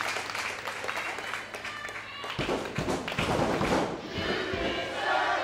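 Wrestling arena crowd applauding and shouting, then music comes in about two seconds in and plays over the crowd noise.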